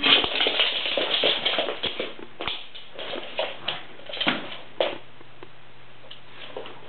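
A Pekingese dog and a cat scuffling, with a busy run of scrabbling and tapping that thins out after about five seconds.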